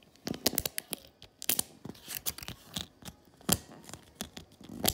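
Empty plastic pill blister pack, used as a homemade mini poppet fidget, having its bubbles pressed in by fingertips: irregular crinkly clicks and crackles, the loudest about three and a half seconds in.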